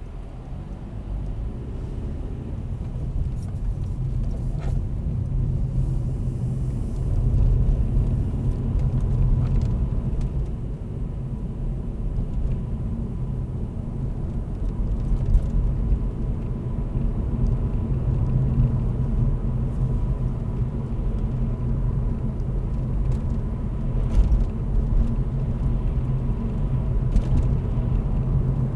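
Engine and road rumble inside the cabin of a 2016 Vauxhall Corsa with a 1.4-litre manual engine, pulling away from a standstill and running on along the road. The rumble grows louder over the first several seconds as the car gathers speed.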